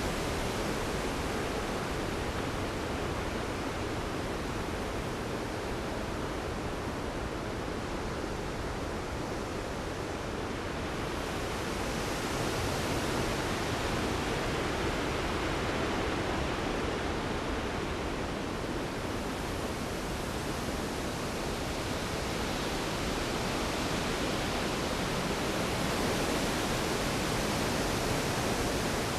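Heavy storm rain falling steadily, a continuous hiss that swells a little around the middle and again near the end.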